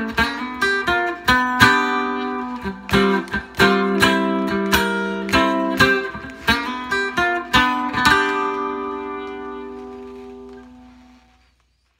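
Supro White Holiday guitar through its piezo pickup, giving a Dobro-like resonator tone: a run of strummed chords, the last struck about eight seconds in and left to ring out and fade away.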